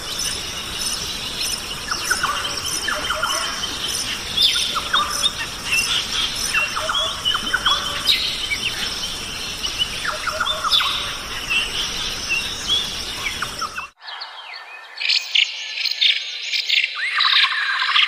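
Forest ambience of many birds chirping and whistling over a steady high insect buzz. About 14 s in it cuts abruptly to a different recording, with sharper repeated bird notes.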